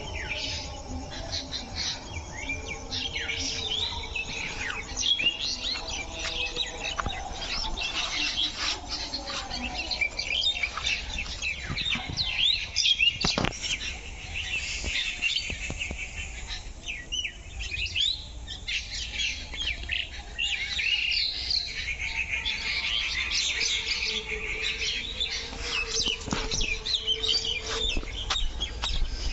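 Many small birds chirping and twittering in a dense, continuous chorus, with a few lower calls and one sharp click about thirteen seconds in.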